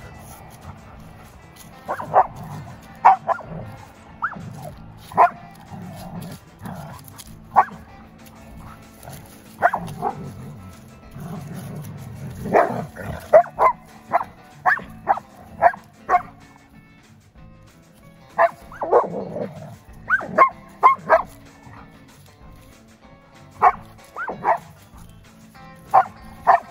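Huskies barking and yipping in short, sharp bursts while they play-fight, in clusters with gaps between. Background music plays underneath.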